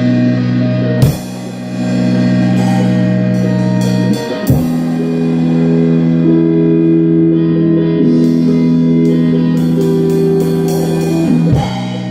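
Rock music with held electric guitar chords and a drum kit played along, a cymbal crash about a second in, another about four and a half seconds in, and one near the end, with lighter hits in between.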